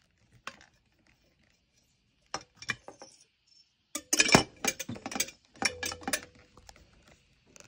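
Light clinks and clicks from the parts of a compact fluorescent ceiling light being handled: its circular glass tubes, metal pan and mounting clips being fitted together. The clicks come in scattered bunches, with the busiest stretch from about four seconds in.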